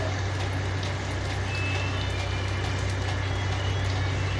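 Vegetable fritters deep-frying in a pan of hot oil, a steady sizzle with fine crackling, over a steady low hum from the ship's engines.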